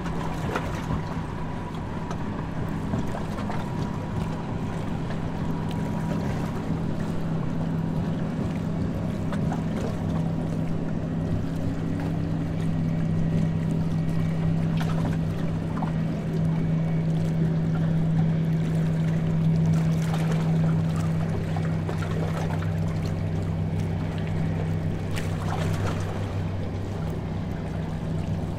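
Harbour tour boat's engine running under way with a steady low drone, over the rush of water along the hull.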